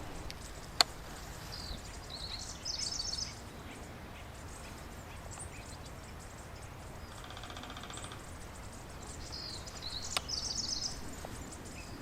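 Acorn woodpeckers giving their laughing calls: two bouts of rapid, high chattering notes, about two seconds in and again near ten seconds, with a short buzzy rattle in between. A sharp click sounds just before the first bout, and another as the second begins.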